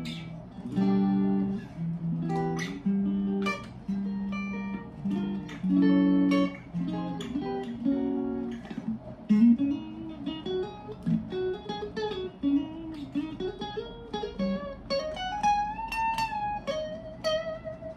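Squier Standard Series Stratocaster electric guitar played with a clean tone: struck chords let ring for the first half, then a single-note lead line with string bends and vibrato. Near the end one note is bent up and held with vibrato.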